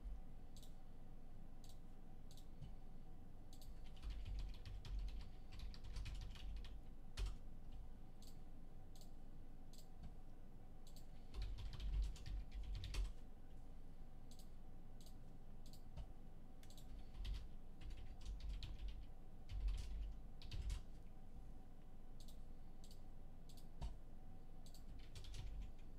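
Typing on a computer keyboard in several short bursts with pauses between, the keystrokes coming with dull low knocks, over a faint steady hum.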